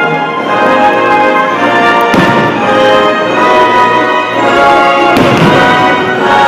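Orchestral show music with brass plays over loudspeakers, and two firework bursts go off, about two seconds in and again about five seconds in.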